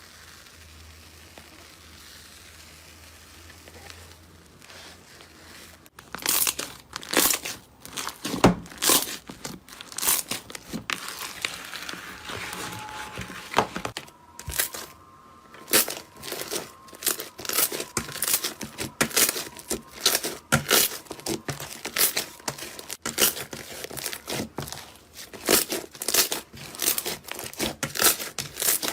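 A faint low hum, then from about six seconds in a long run of crisp crunching and crackling, about one or two sharp crunches a second with smaller crackles between, as a brittle material is crushed or torn close to the microphone.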